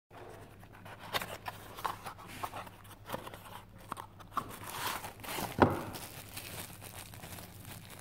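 Unboxing a folding knife: a cardboard box handled and its end flap opened, then the bubble-wrapped knife slid out, giving scattered scrapes, rustles and crinkles. The sharpest and loudest comes about five and a half seconds in.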